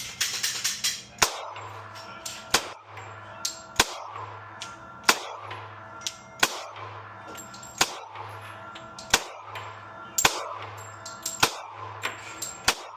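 Background music with a steady beat: a sharp hit about every 1.3 seconds with pulsing bass between the hits.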